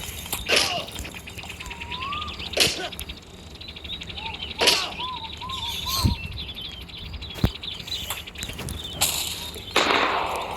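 A string of about six sharp, sudden swishing hits, spaced a second or two apart, with short chirping pitch glides and fast rattling clicks between them.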